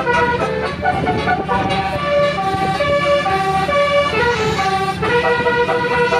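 An Indonesian bus's multi-tone 'telolet' horn of the Basuri type playing a tune: short held notes that step up and down in pitch, over a steady low hum.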